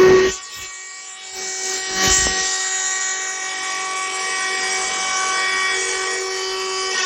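An emergency-alert alarm tone: a steady, buzzing chord of several held pitches. It opens with a short loud blast, grows louder about two seconds in, then holds level and cuts off abruptly.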